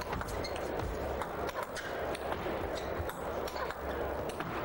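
Table tennis rally: the celluloid ball clicking off the rackets and the table in an irregular run of sharp knocks, over steady background noise of the hall.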